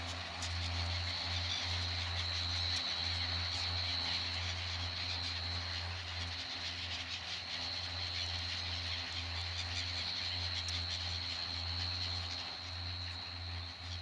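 Diesel engines of a John Deere 6930 and a New Holland TS135 tractor working under load while ploughing, a steady low rumble heard at a distance. A thin steady high tone runs alongside.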